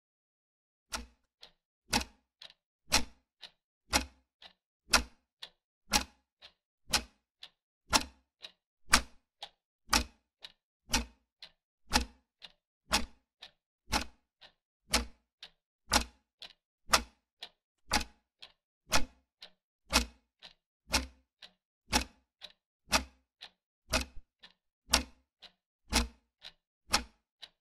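Clock ticking steadily, a louder tick each second with a softer one in between, each tick carrying a low thud.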